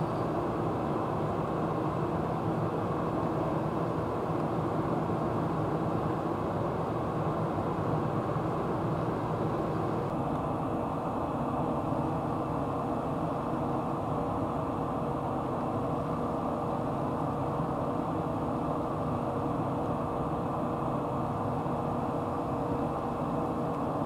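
Steady low rumbling background noise with no distinct events, joined from about ten seconds in by a faint steady hum.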